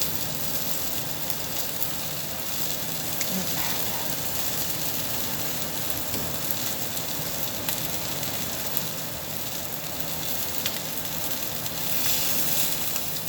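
Meat sizzling steadily on a Korean barbecue grill.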